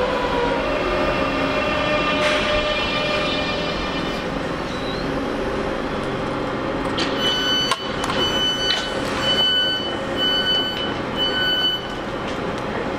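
Great Northern electric multiple unit slowing to a stop, its motor whine falling in pitch and then settling to a steady hum. About seven seconds in a click is heard, and the door warning beeps sound five times, about once a second, as the doors open.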